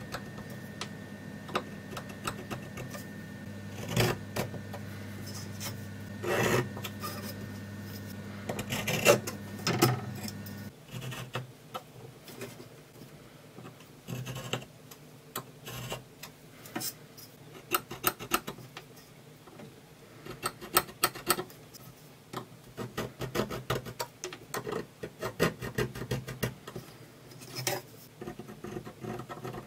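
Steel scriber scratching layout lines into a steel saw blade along a steel rule: many short scrapes and light clicks. A steady low hum stops abruptly partway through.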